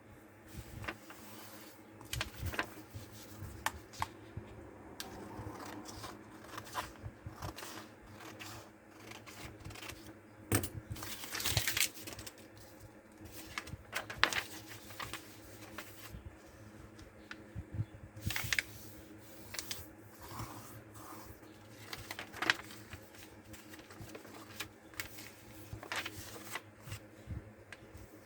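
Paper being handled, folded and creased by hand: irregular rustles and clicks, busiest about two-fifths of the way in.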